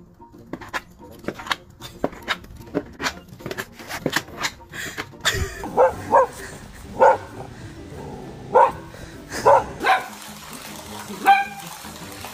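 A dog barking in a volley of short, loud barks through the middle of the stretch. Before it comes a run of light clicks, and near the end there is one higher call.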